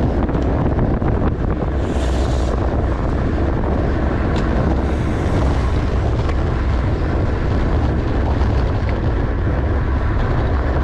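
Steady, loud wind noise buffeting a camera microphone on a racing bicycle at speed, with a brief hiss about two seconds in.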